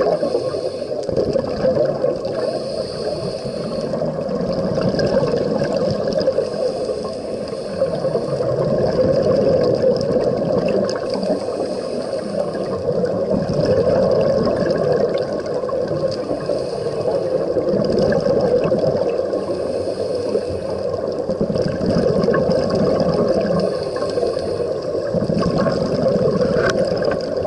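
Scuba diver's regulator breathing heard underwater: a steady muffled rush of water and exhaust bubbles, with a faint high hiss of an inhale about every four to five seconds.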